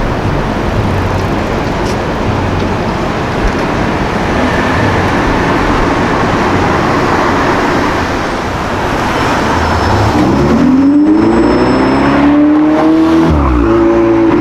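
A supercar's engine and exhaust running loud. About ten seconds in it accelerates, its pitch rising, then drops sharply near the end at what sounds like a gear change before pulling on.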